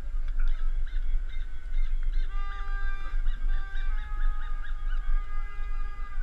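Several horns blown at once in a crowd, overlapping long held notes at different pitches that change in steps, over a steady low rumble.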